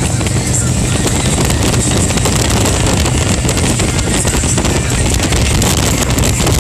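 Wind buffeting a phone's microphone on a Harley-Davidson Road Glide Special at freeway speed, a loud, steady rush with the motorcycle's engine and tyre noise running steadily underneath.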